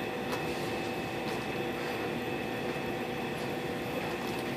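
Steady hum of restaurant appliances and ventilation in a small room, with a few faint steady tones and occasional faint clicks.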